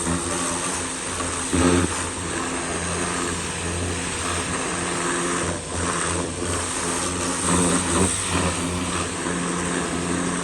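Pressure washer's small engine running steadily under the hiss of the high-pressure water spray.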